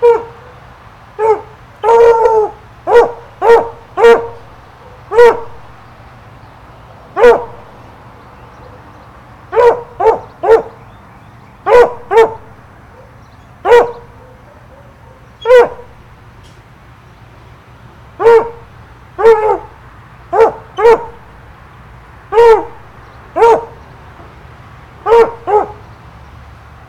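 A dog barking repeatedly: short single barks and quick pairs, a second or two apart at irregular intervals.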